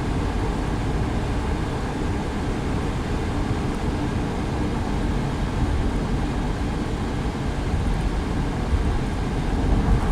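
Steady road noise of a car driving at highway speed: tyre and engine noise running evenly, with no sharp events.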